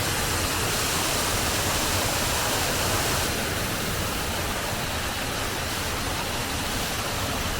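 Waterfall pouring down into a gully: a steady rush of falling water, easing slightly about three seconds in.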